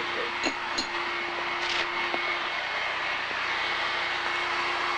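A machine running with a steady rushing noise and a faint hum, with a few soft clicks in the first two seconds.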